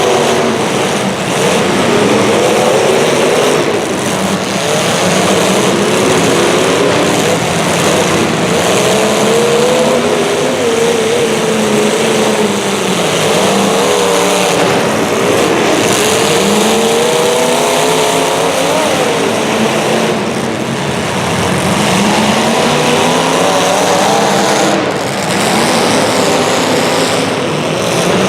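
Several racing engines running together throughout. Their overlapping pitches keep rising and falling as the vehicles accelerate and back off around the track.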